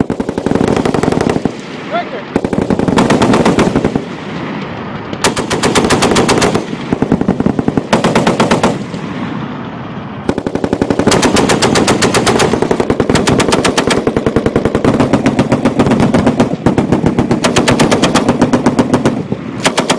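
Belt-fed machine guns firing bursts of rapid, very loud shots, one burst after another. Some bursts are short and some run for several seconds, with brief lulls between.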